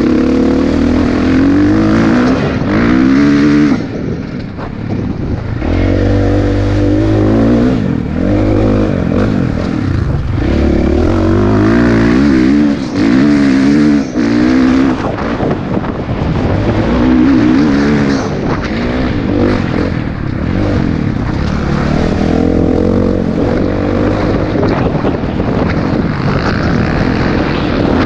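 Dirt bike engine heard from the rider's helmet camera, revving up through the gears and easing off again and again, its pitch climbing and dropping, with brief throttle-offs about four and fourteen seconds in.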